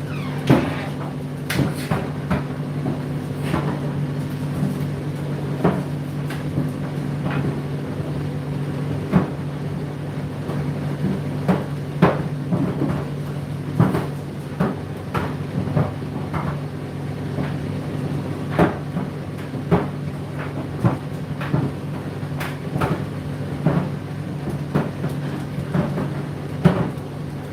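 Condenser tumble dryer running: a steady motor hum with irregular knocks and clicks as the load tumbles in the drum.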